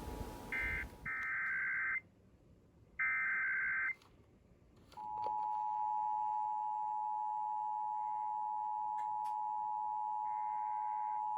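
Emergency Alert System digital data bursts: a couple of short warbling screeches, each about a second long, with quiet gaps between them. About five seconds in, the steady EAS attention tone begins and holds, with fainter data bursts behind it.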